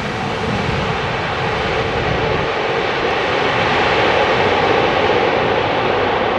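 Airbus A330neo's Rolls-Royce Trent 7000 jet engines, a loud steady roar that builds slightly over the first few seconds as the airliner comes in to land.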